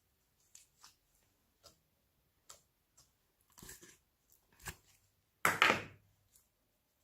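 Slime being handled and mixed: scattered small clicks and squishes, then a louder, longer squish about five and a half seconds in.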